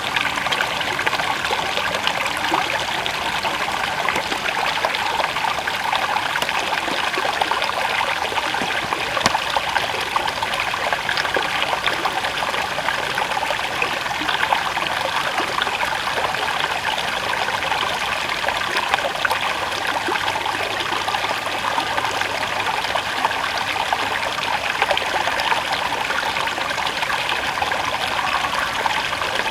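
River water flowing: a steady, even rush with a fine splashing texture that holds unchanged throughout.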